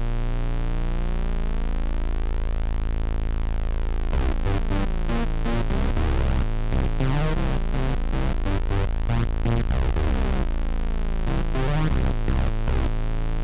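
A low synthesized bass note held steadily: two slightly detuned sawtooth oscillators and a sine an octave below, through a resonant low-pass filter, giving a phasey swirl. About four seconds in, a reference synth bass line joins it in short rhythmic notes, breaks off briefly and starts again near the end.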